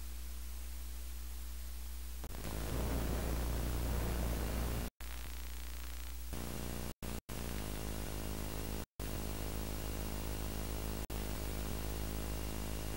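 Videotape playback noise from a VHS tape's blank leader: a steady electrical hum under hiss. The hiss grows louder about two seconds in, and the sound cuts out to silence for a moment several times.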